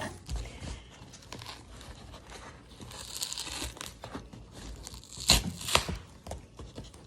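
Packing tape being torn and peeled off a taped-up cardboard box, with crinkling and rustling. Two sharp clicks near the end are the loudest sounds.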